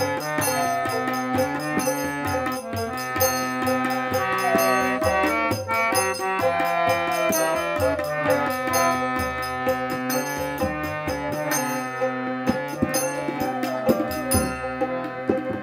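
Instrumental interlude of a Baul folk song. A bamboo flute plays a bending melody over harmonium chords, with tabla keeping a steady beat.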